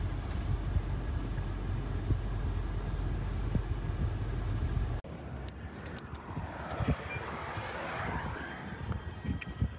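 Steady low engine and road rumble heard from inside a moving car. About halfway through it cuts off abruptly to a quieter, mixed background with scattered clicks and knocks.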